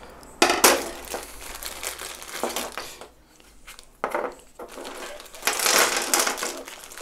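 Clear plastic parts bag crinkling as it is picked up and handled, with a sharp knock about half a second in.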